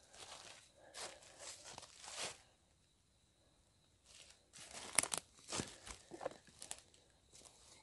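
Footsteps crunching on the forest floor, irregular steps for about two seconds, a pause of about two seconds, then more steps with a sharp click about five seconds in.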